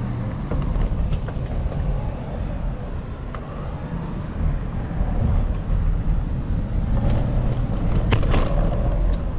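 Street and traffic noise heard from a moving bicycle: a steady low rumble, with a short rattle about eight seconds in.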